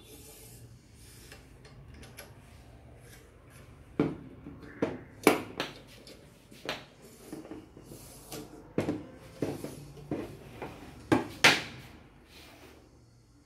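Metal rods and clamps of a Thompson surgical retractor frame being handled and fitted together, clinking against each other and knocking on a wooden tabletop. Fairly quiet for the first few seconds, then a string of sharp clanks and knocks, two of them louder than the rest.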